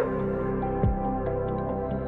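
Ambient background music with long held notes and a deep drum hit about a second in.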